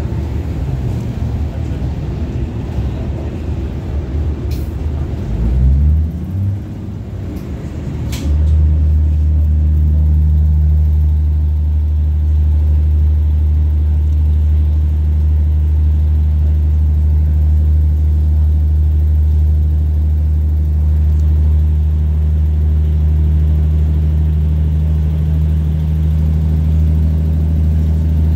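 Cabin noise aboard a 2800 Class diesel multiple unit under way: engine and wheel-on-rail rumble. About eight seconds in, after a click, it becomes a louder, steady low drone that holds a constant pitch.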